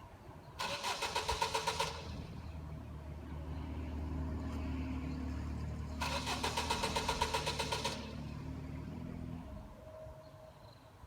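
A car being cranked on its starter in a pulsing burst of about a second and a half, then a low engine running. A second burst of cranking comes about six seconds in, and the engine sound stops about nine and a half seconds in: a hard-starting car that won't keep running.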